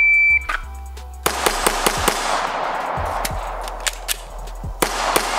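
A shot timer beeps once. About a second later a custom Gen 4 Glock 17 9mm pistol, fitted with a ported compensator, fires rapid strings of shots, several a second, each crack followed by a ringing tail.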